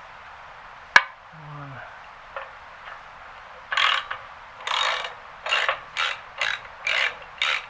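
A sharp metallic click about a second in, then a hand ratchet working in quick back-and-forth strokes, about two a second, backing an exhaust manifold bolt out.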